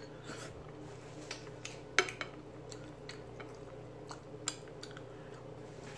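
Scattered light clicks and clinks on a dinner plate as neck bones are picked apart by hand, with one sharper clink about two seconds in.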